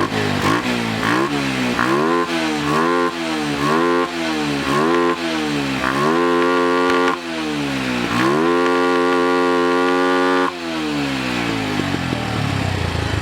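Bajaj Pulsar 150's single-cylinder four-stroke engine, fitted with a K&N R1100 open cone air filter, revved in quick throttle blips about once a second. It is then held high twice for a second or two each time and falls back toward idle near the end.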